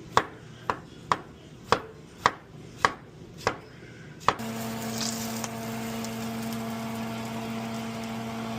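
Kitchen knife knocking on a cutting board in a steady rhythm, about two chops a second for roughly four seconds. Then a steady electric hum with a hiss starts, like a kitchen fan or appliance switched on.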